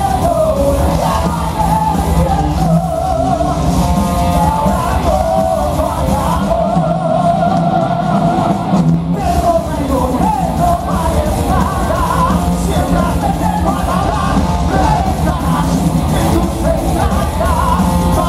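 Live heavy metal band playing loud, with electric guitars, bass and drums under two singers singing and shouting, heard from the crowd through the stage PA.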